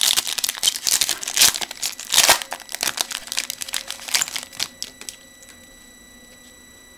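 Foil trading-card pack being torn open and crinkled as the cards are pulled out of the wrapper; the crinkling stops about five seconds in.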